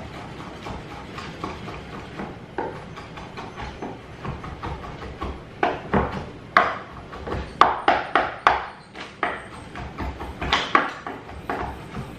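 Kitchen knife chopping cooked ham on a wooden chopping board: irregular knocks of the blade against the board, soft and sparse at first, then louder and quicker from about halfway through.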